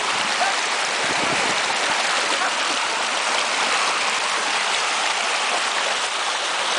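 Small rocky stream rushing steadily over stones, a continuous white-water hiss.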